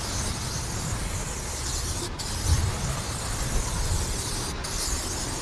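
Aerosol spray-paint can hissing as it lays long strokes, with the hiss stopping for a moment twice, about two seconds in and near the end, as the nozzle is let go. A low steady rumble sits underneath.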